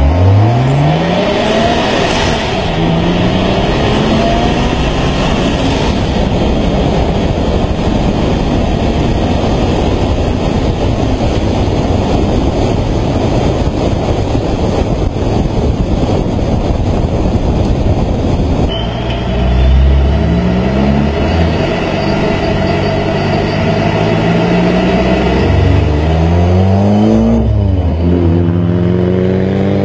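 Supercharged 4.0 L V6 Mustang engine pulling hard under acceleration, revs climbing, with heavy wind and road noise at speed in between. Partway through a second hard pull starts, revs rising, dropping at a gear change near the end and climbing again. The uploader says the clutch is slipping.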